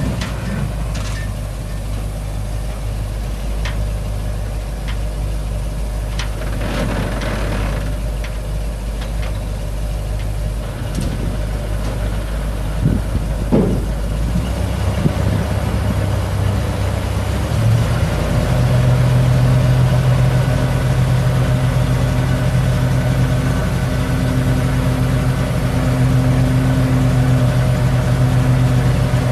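1979 Ford F600 dump truck's V8 gas engine idling, with a few short knocks about halfway through; then its note steps up and holds steady as the hydraulic hoist raises the dump bed.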